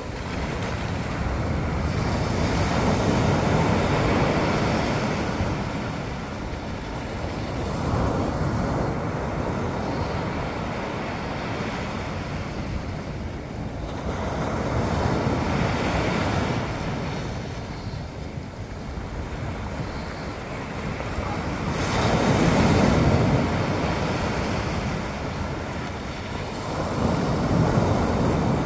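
Ocean waves breaking and washing ashore in repeated swells of rushing noise, about five in a row, several seconds apart, with wind rumbling on the microphone.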